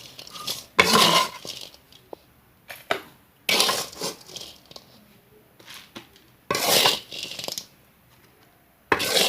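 A metal utensil scraping and clinking against a cooking pot as food is stirred, in four short strokes a few seconds apart.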